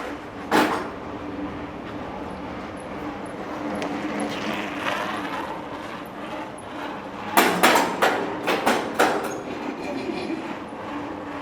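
Loud knocks and clattering bangs over a steady hum: one bang about half a second in, then a quick run of about six bangs past the middle.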